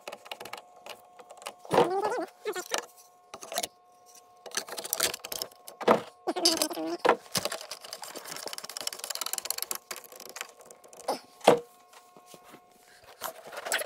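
Metal clinks, clicks and knocks of hand tools and latch hardware as a door handle and latch assembly is screwed onto a skid steer's glass door, with some rustling in the middle and a sharp knock about eleven and a half seconds in.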